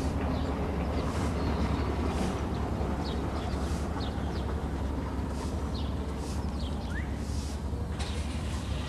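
Steady low rumble of cruise-ship and harbour machinery, with short high bird chirps every second or so.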